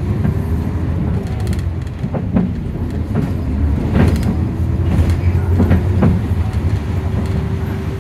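Nissan Diesel KC-UA460NSN city bus heard from inside the cabin while under way: a steady low diesel engine drone, with several short knocks and rattles from the body and fittings through the middle.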